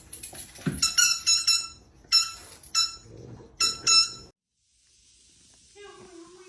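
Squeaky dog toy squeaking in quick runs of short, same-pitched squeaks, then cutting off abruptly. A low, steady drawn-out tone starts near the end.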